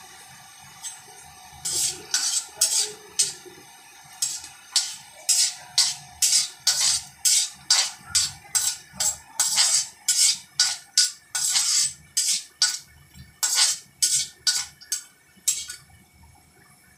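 Steel slotted spoon scraping and clinking against an iron kadhai while stirring peanuts roasting in ghee, about two strokes a second. The stirring starts about two seconds in and stops shortly before the end.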